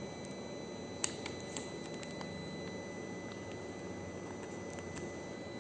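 Steady room hum with a few faint clicks as a phone case is handled, the sharpest about a second in and a smaller one half a second later.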